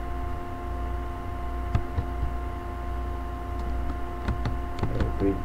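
Steady electrical hum with a few constant tones, with a handful of scattered computer keyboard clicks as a word is typed, a few about halfway and more near the end.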